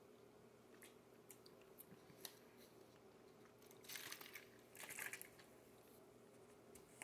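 Near silence over a faint steady hum, with a few faint ticks and two short soft crunching noises about four and five seconds in.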